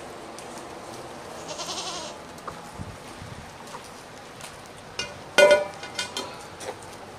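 A goat bleating once, loudly and briefly, about five and a half seconds in, with a fainter high call earlier. Scattered small clicks and knocks sound throughout, typical of a crackling campfire being tended.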